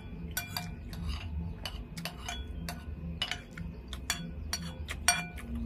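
Metal spoon clinking and scraping against a glazed ceramic bowl while scooping up food: a run of irregular light clinks, two or three a second, each with a short ring, the loudest near the end.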